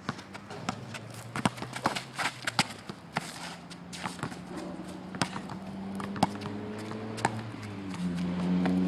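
Basketball game play on an indoor court: irregular sharp knocks of running footsteps and the ball bouncing. A steady low hum comes in about halfway through and grows louder toward the end.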